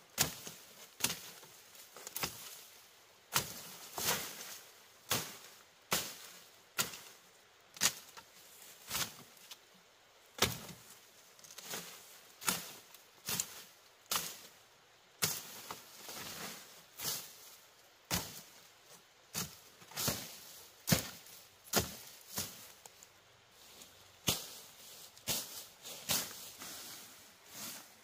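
Repeated blows of a hand tool, roughly one a second and unevenly spaced, each a sharp knock.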